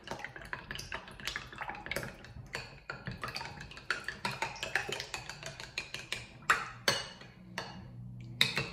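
Metal spoon beating eggs and milk in a small ceramic bowl: quick, irregular clinks and scrapes of the spoon against the bowl, with a couple of sharper clinks near the end.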